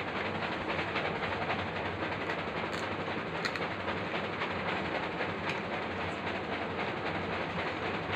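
A steady rushing background noise, with a few faint clicks and taps as a steel spoon works puri shells over steel bowls.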